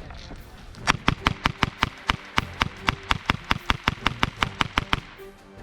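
Airsoft gun firing a rapid string of sharp shots, about six a second, starting about a second in and stopping near the end.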